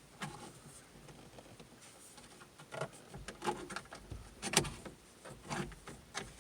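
Scattered light clicks and knocks of hands working the plastic information-display knob off its shaft on a Saab 9-3 dashboard, the loudest a little after halfway.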